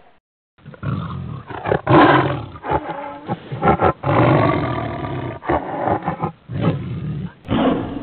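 Tiger roaring: a string of loud roars broken by short pauses, starting after a moment of silence.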